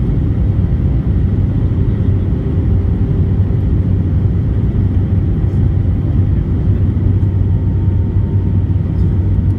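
Steady cabin noise of an Airbus A320 on approach: engine and airflow rumble with a low hum, heard inside the cabin over the wing.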